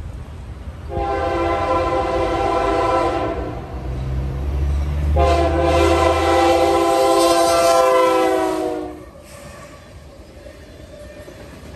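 Freight locomotive's air horn sounding two long blasts at a grade crossing, the second held longer and louder, several notes sounding together as a chord, over the low rumble of the diesel. After the horn stops, about nine seconds in, the train's cars roll by more quietly.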